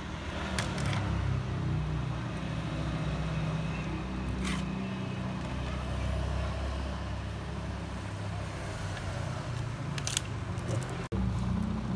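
Steady low rumble of road traffic, with a few light clicks near the start, in the middle and near the end.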